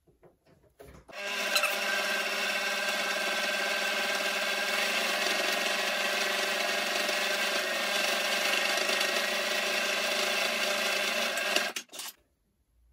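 Janome electric sewing machine running at a steady speed, stitching a straight seam through cotton fabric. It starts about a second in and stops shortly before the end.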